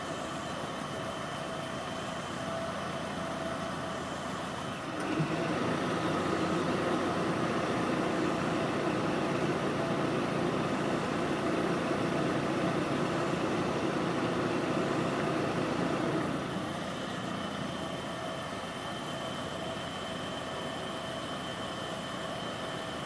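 Steady low engine rumble of a motor vehicle over background noise, growing louder about five seconds in and dropping back about eleven seconds later.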